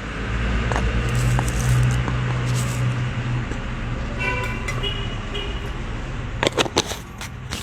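Road traffic with steady low engine noise, and a car horn sounding in a few short toots about four to five seconds in. A few sharp clicks near the end.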